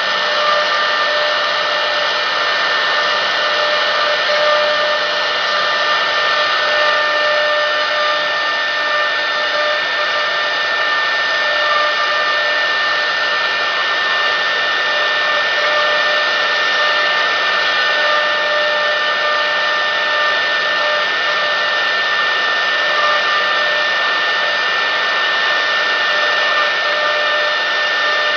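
CNC router spindle running steadily with a high whine, its bit carving a wooden workpiece held in the rotary-axis chuck.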